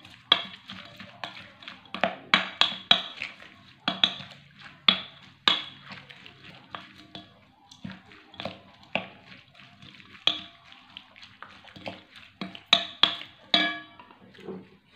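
Wooden spoon mixing sliced onions, tomatoes and chillies in a glass bowl: irregular knocks and clinks of wood against glass, with a quick run of sharper knocks near the end.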